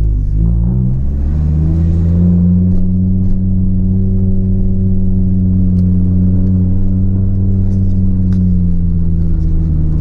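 Audi S4 C4's turbocharged 2.2-litre five-cylinder (AAN 20V turbo engine) heard from inside the cabin on low boost, about 8 to 9 psi. The engine note drops and climbs back within the first second, then holds a steady pull, with a few light ticks near the end.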